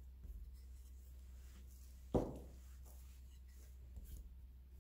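Hands patting and turning a round of malawah dough on a flour-dusted cloth surface, faint rubbing with one sudden thud about two seconds in.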